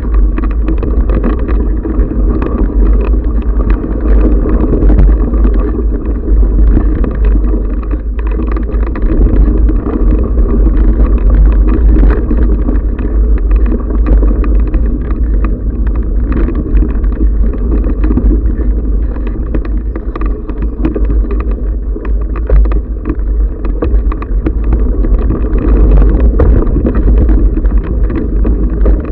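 Riding noise from a bike-mounted camera on a rough dirt singletrack: a constant heavy rumble with a dense rattle of small knocks and clicks as the tyres run over the bumpy trail, and some wind on the microphone.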